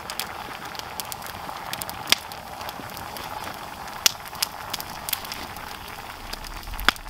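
Wood fire in a fire pit crackling, with scattered sharp pops over a steady low hiss; a few pops stand out louder, the loudest near the end.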